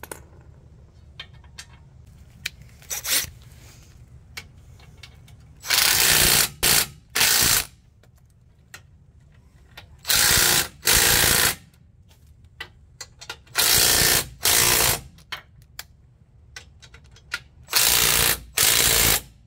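Cordless power driver running the winch mounting bolts into their nuts in a series of short bursts, with light clicks of hardware being handled between them.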